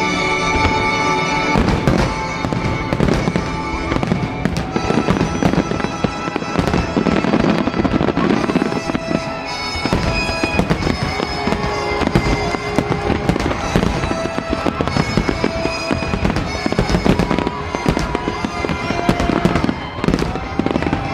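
Aerial fireworks bursting in rapid succession during a fireworks show's grand finale, with the show's accompanying music playing throughout.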